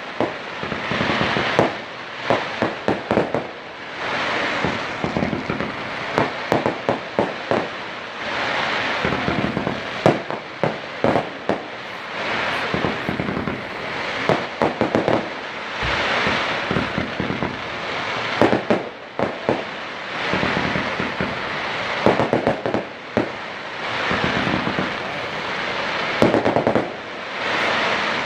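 A fireworks display: a continuous run of bangs and rapid crackling volleys, coming in clusters every second or two, with a hiss rising and falling between them.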